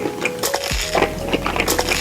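Close-miked mukbang eating sounds: a rapid run of crisp crunches and clicks of chewing.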